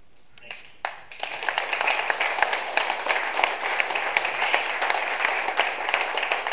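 Audience applauding. It starts about half a second in and swells to full clapping within a second, with a few sharp single claps standing out.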